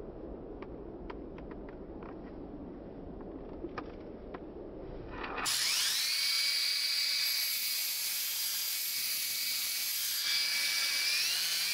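A series of sharp, separate clicks from the power switch of a cordless Bosch angle grinder as it is worked by hand. At about five and a half seconds the sound cuts abruptly to a louder steady hiss with high tones that rise and then hold steady.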